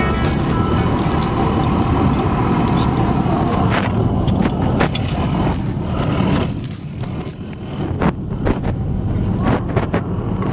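A vehicle engine running steadily, with scattered metallic clanks and jingling from about four seconds in.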